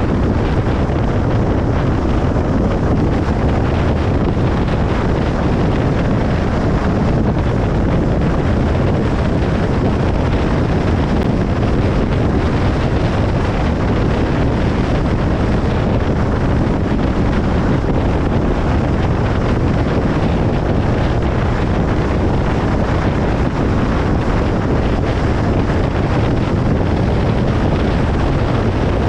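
Steady road noise of a car driving along a highway: an even rumble of tyres and wind that does not rise or fall.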